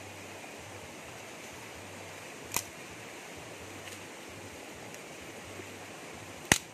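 Steady rushing outdoor background noise, broken by two sharp clicks or knocks about four seconds apart, the second one louder and near the end.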